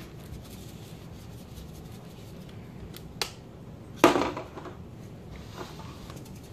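A spice shaker being handled on a kitchen countertop: two light clicks about three seconds in, then a sharp knock as the bottle is set down about four seconds in, followed by a few soft taps, over a steady low hiss.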